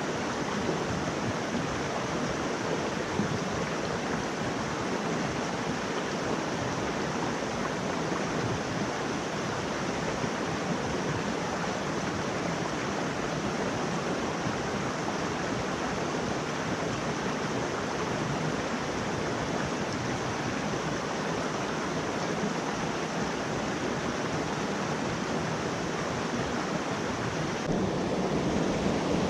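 Mountain stream water rushing steadily over rocks, a little louder near the end.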